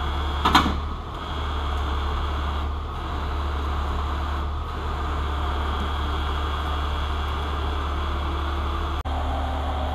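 Heavy wrecker's diesel engine running steadily while winching a dump truck sideways, with one brief louder sound about half a second in.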